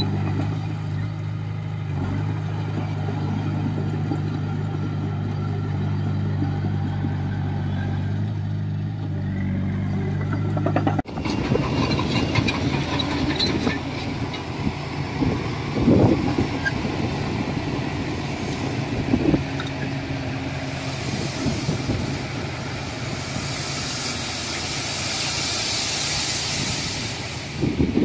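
Komatsu bulldozer's diesel engine running steadily. After an abrupt cut about 11 seconds in it is rougher and noisier, with clanking, a few sharp knocks and a hiss near the end.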